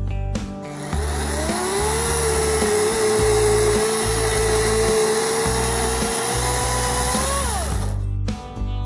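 Greenworks electric chainsaw spinning up with a rising whine, cutting through a fallen maple limb for about six seconds, then winding down. Background music with a steady beat plays throughout.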